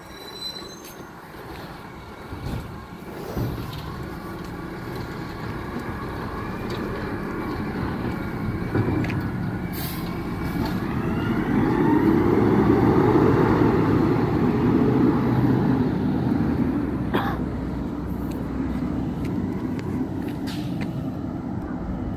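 Garbage truck's diesel engine running as the truck moves off down the street. It builds to its loudest about halfway through, rising in pitch as it speeds up, then grows gradually quieter.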